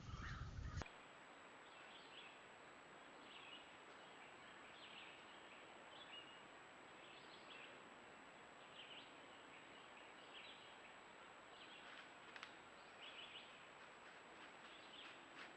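Faint, short bird chirps scattered irregularly over a steady low hiss. A louder noise cuts off abruptly just under a second in.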